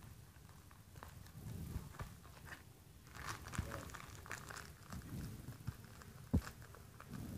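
Scissors snipping along the edge of a plastic courier mailer, with crinkling of the plastic and scattered small clicks, and one sharp knock about six seconds in.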